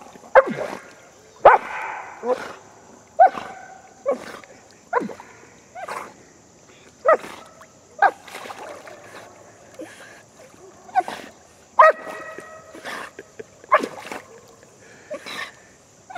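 A dog swimming after floating food pellets, giving short yelps with a falling pitch about once a second.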